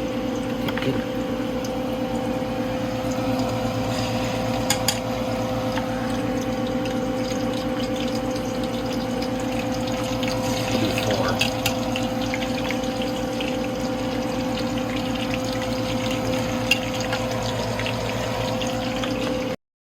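Crappie fillets frying in hot oil: a steady sizzle with scattered pops and crackles over a constant hum, cutting off suddenly near the end.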